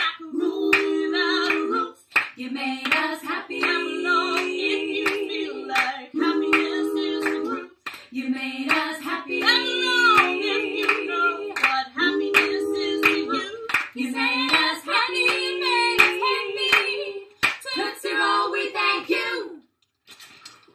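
Female vocal group singing a cappella in close harmony: low backing voices hold a repeated phrase about every two seconds under higher lead lines, with a few sharp hand claps. The singing stops near the end.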